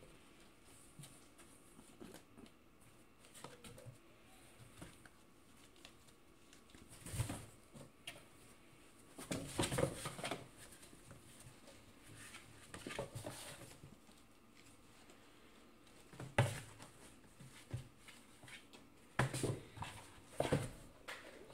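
Cats scratching and scrabbling at a cardboard box: irregular bursts of scraping and rustling with quiet gaps between.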